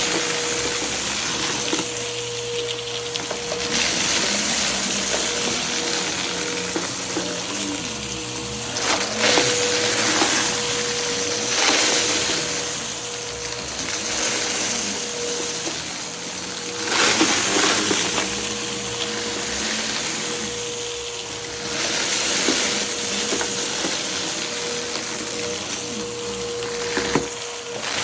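Vacuum cleaner running, a steady motor whine under rushing suction air, with the airflow swelling every few seconds as it is pushed over the floor picking up scattered debris.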